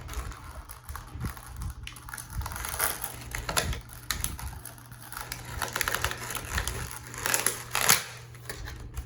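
Plastic Smashers toy packaging and shell being handled and broken open: irregular clicks, crackles and crunches, loudest a little before the end.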